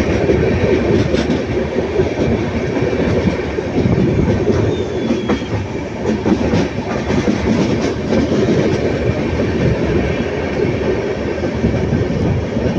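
Passenger train running, heard from inside the carriage: a steady rumble with the wheels clacking over the rail joints.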